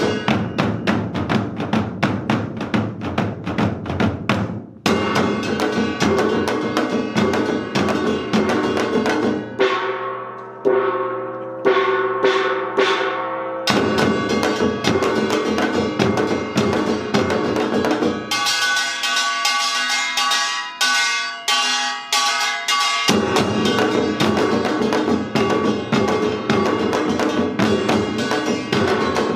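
Samul nori ensemble of janggu hourglass drums, buk barrel drums and gongs playing Yeongnam rhythms in dense, fast strokes. About ten seconds in, the drums drop out for a few seconds of ringing gong strokes. Around nineteen seconds there is a stretch of quick, bright metal strokes without drums, before the full ensemble comes back in.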